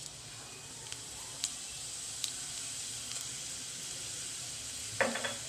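Mustard and cumin seeds frying in hot oil in a kadhai for a tempering: a steady sizzling hiss with a few sharp pops as the seeds crackle.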